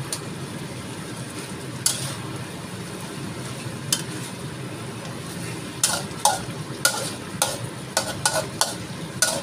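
Fish in tomato sauce simmering steadily in a wok, with a metal spatula clinking and scraping against the wok as the pieces are turned. Two single clinks come early, then a quick run of clinks, about two a second, over the last few seconds.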